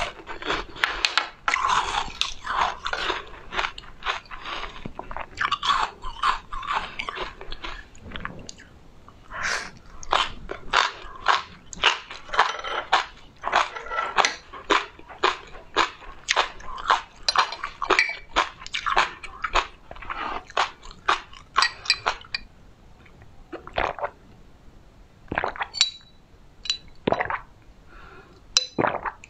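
A person chewing crisp food with loud, rapid crunches, thick and continuous for about the first twenty seconds, then sparser. Near the end, a few sips through a straw.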